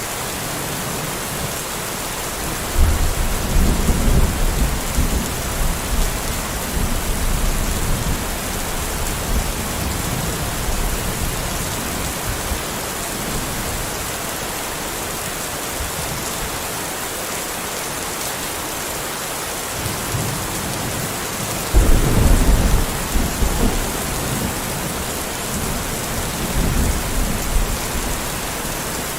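Steady heavy rain hissing, with two rolls of thunder rumbling in the low range: one about three seconds in and a stronger one about twenty-two seconds in, each fading out over several seconds.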